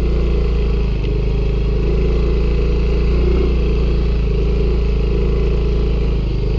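Small motor scooter's engine running at a steady, even speed under the rider.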